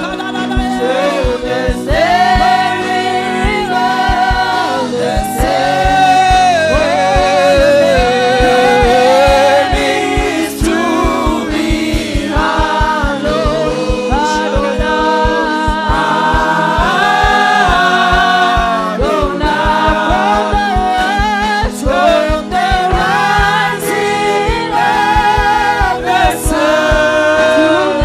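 Gospel worship song: several voices singing a melody over instrumental backing with a steady low beat.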